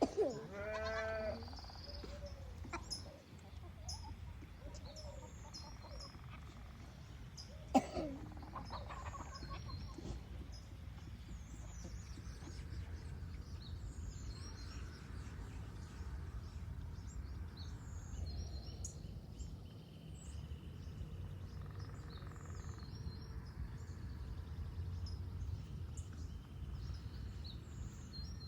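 Farmyard sounds: a farm animal calls near the start and again about eight seconds in, over small birds chirping and a low steady rumble.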